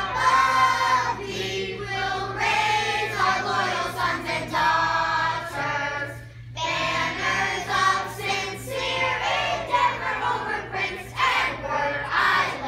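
Children's choir singing together, with a short break about halfway through.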